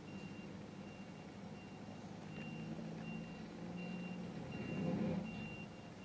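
Backup alarm of a JCB backhoe loader beeping steadily, a beep roughly every three-quarters of a second, over the machine's diesel engine running. The engine note swells about five seconds in.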